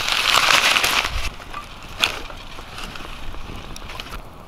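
Crumpled newspaper under twig kindling catching light and burning, crackling with scattered snaps and one sharper pop about two seconds in. A louder rushing hiss fills roughly the first second, then drops away.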